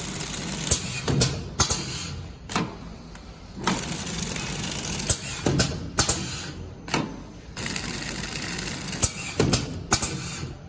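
Horizontal flow-wrap packing machine running as it wraps zippers in plastic film: a mechanical clatter with many sharp clicks, in spells broken by short pauses.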